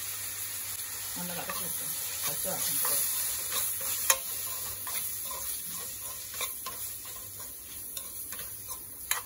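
Onions and tomatoes frying in oil in a stainless steel kadai, sizzling while spice powder is stirred in with a steel ladle that scrapes against the pan. There is a sharp clink of the ladle on the pan about four seconds in.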